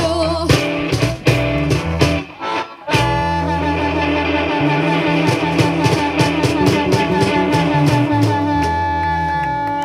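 Live blues band: electric guitar and bass guitar playing, a brief break, then a long held closing chord with a harmonica warbling on one note over it, which stops just before the end.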